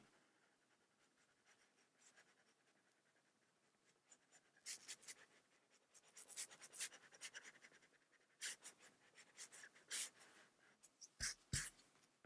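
Faint scratching of a stylus stroking quickly back and forth on a tablet's glass screen, coloring in a large area, with a couple of sharper taps near the end. The first few seconds are near silent.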